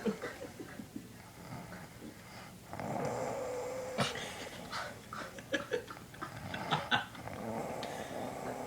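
A person snoring while asleep: two long snores, the first starting about three seconds in and the second near the end, with a few short sharp sounds between.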